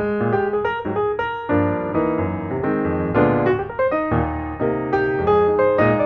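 Background piano music, a steady flow of notes with chords underneath.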